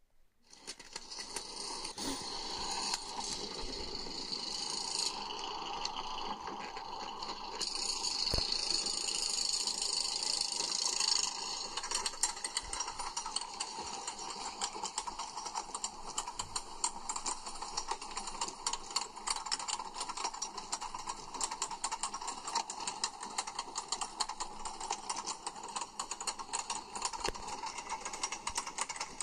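Megafobia wooden roller coaster climbing its chain lift hill: after a hissing rush for the first ten seconds or so, a rapid, steady clatter of the lift chain and anti-rollback ratchet clicking, heard as played back through a screen's speaker.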